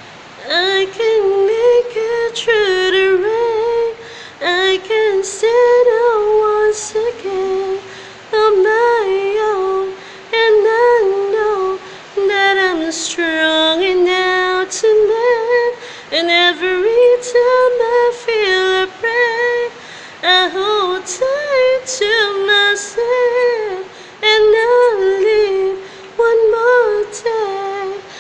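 A woman singing solo without accompaniment, in long, slow phrases of sustained notes with vibrato and short breaths between them.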